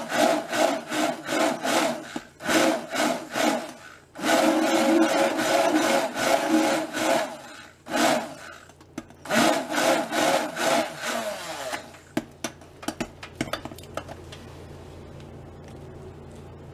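Oster stick blender running in bursts, churning thick soap paste in a glass jug, with a rubbing, scraping edge to the motor. It stops about twelve seconds in, leaving a faint steady hum and a few light clicks.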